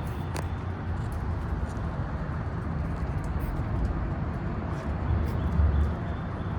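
Steady low rumble of road traffic heard in the open air, swelling briefly about five seconds in.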